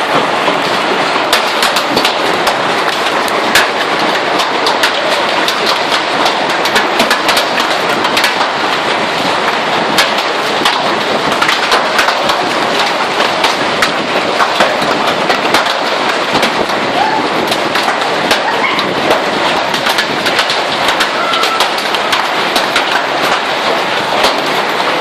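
Hailstorm with heavy rain: a dense, steady rush of rain with many sharp clicks from hailstones striking hard surfaces.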